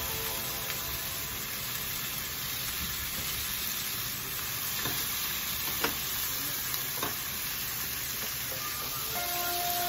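Sliced liver and onions sizzling in a stone-coated wok while being stirred with wooden chopsticks, with a few clicks of the chopsticks against the pan, the loudest about six seconds in.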